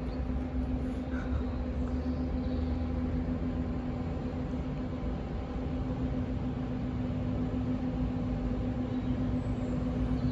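Northern Class 156 diesel multiple unit approaching the platform, with a steady low engine drone and rumble.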